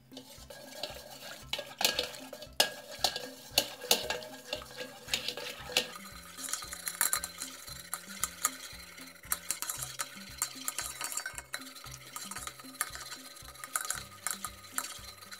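A wire whisk beats toothpaste and shower gel in an enamel bowl, its tines scraping and tapping against the bowl. About six seconds in the strokes blur into a denser, hissier whisking as the mixture turns foamy. Background music with a steady beat plays underneath.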